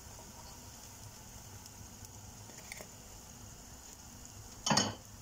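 Hot oil sizzling steadily in a frying pan around pieces of frying dough. Near the end, one short clatter stands out.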